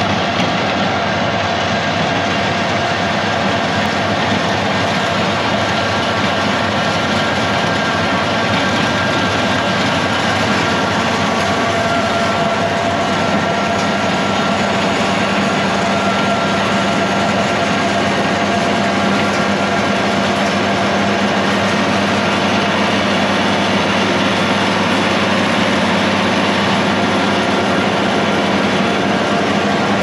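International Harvester 1206 tractor's turbocharged six-cylinder diesel running steadily under load, pulling a MacDon 4000 mower conditioner cutting thick alfalfa-grass hay. The engine and mower make a dense steady drone with a thin whine on top, and a lower hum joins about halfway through.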